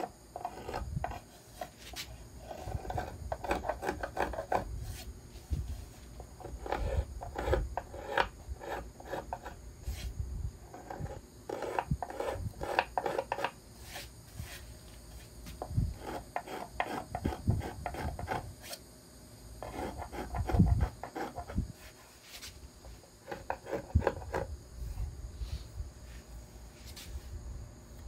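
Small violin-maker's finger plane shaving the arch of a wooden violin plate, smoothing out high spots. It goes in runs of quick, short rubbing strokes, each run lasting a second or three, with short pauses between runs.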